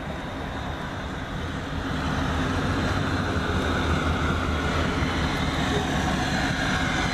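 Pickup truck engine running steadily with a low hum, getting a little louder about two seconds in.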